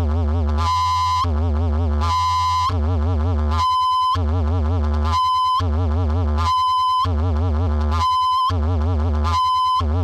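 Electronic synthesizer music imitating birdsong: a warbling vibrato line alternates with a bright, high, chirping tone about every three-quarters of a second, over a steady low bass.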